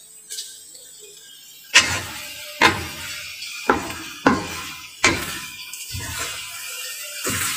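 Wooden spatula knocking and scraping against a pan while stir-frying fried noodles: about seven sharp knocks, roughly one a second.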